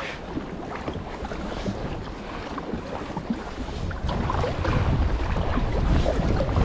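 Wind buffeting the microphone over water dripping and lapping around a sea kayak being paddled, with scattered small splashes; the wind grows louder about four seconds in.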